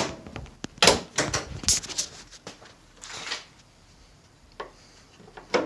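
Jeep Wrangler JK hood being lowered onto newly fitted JL-style hood latches: a run of sharp metal clicks and knocks, the loudest at the start and about a second in, with a short scrape around the middle and two more clicks near the end.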